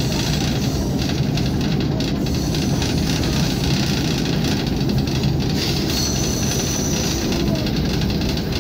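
Running noise of a ČSD M262.1 'Kreden' diesel railcar under way: a steady low rumble of engine and wheels on the rails. A faint high-pitched whine comes in briefly about six seconds in.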